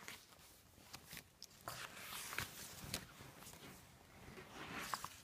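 Faint rustling and light taps of paperback book pages being turned and handled.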